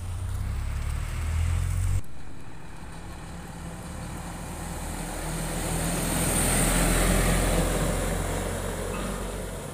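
Diesel truck engines: for the first two seconds a container semi-truck drives off, then after a cut a medium-duty tanker truck approaches and passes close by, loudest about seven seconds in and fading as it moves away.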